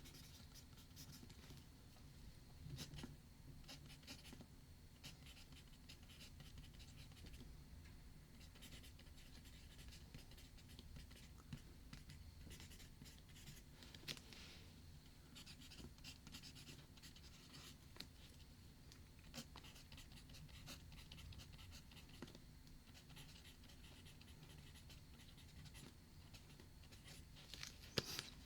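Faint writing on paper with a pen or pencil: short scratchy strokes with brief pauses, over a low steady hum. One sharp click near the end.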